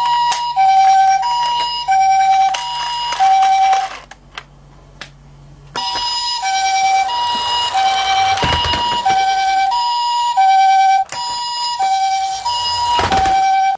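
Electronic Japanese-style ambulance siren sounding its two-tone high-low 'pee-po' call, alternating evenly and repeating. It stops for about two seconds near the middle, where a few small clicks are heard, then starts again.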